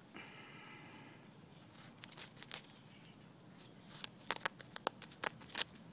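Patterdale terrier puppy digging in sandy soil with its front paws: scratchy scraping and scuffing of sand, with a quick flurry of sharper scrapes in the second half.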